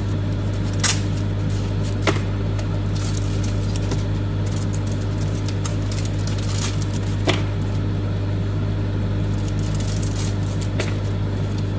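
Microwave oven running with a steady electrical hum, with three sharp snaps about one, two and seven seconds in.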